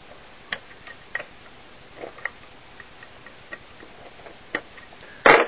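Light, irregular clicks of a screwdriver on the small screws of the accelerator pump cover on a Holley-style carburetor float bowl, as they are checked for tightness. There are about half a dozen clicks spread across a few seconds.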